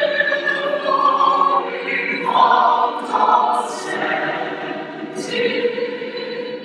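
Large mixed chorus of men and women singing unaccompanied, holding full chords that change every second or so, with sharp sibilant consonants cutting through; the sound grows softer near the end.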